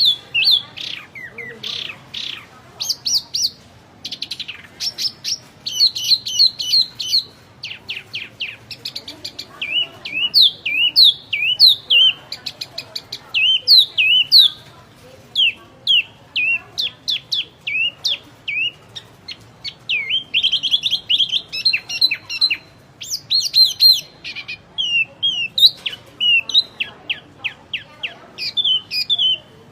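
Small songbird called a wambi in Indonesian bird-keeping, singing a continuous stream of varied, rapid chirps and quick up-and-down whistled sweeps. It is in full 'gacor' song, the kind used as a master recording to teach cage birds.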